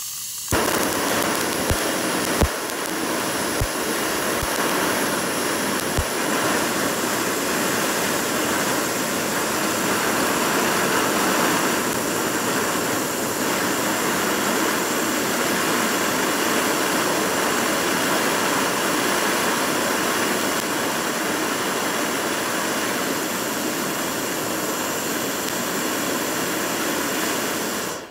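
Handheld butane torch flame blowing with a loud, steady rushing hiss, with a few sharp pops in the first six seconds; the flame cuts off suddenly near the end.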